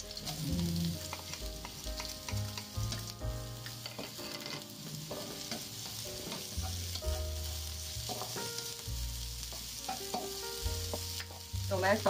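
Chopped shallots, garlic and ginger sizzling in hot oil in a non-stick wok, stirred and pushed around with a spatula: aromatics being stir-fried until fragrant.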